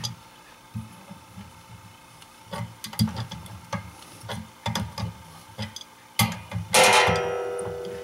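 Wrench and brass fittings knocking and clicking as a pipe union is tightened, then near the end a loud metallic clang that rings on and fades away.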